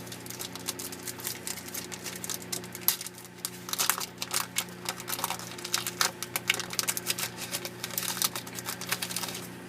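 Foil Yu-Gi-Oh booster pack wrapper crinkling and crackling as it is handled and torn open, the crackles thickening about three and a half seconds in, over a steady low hum.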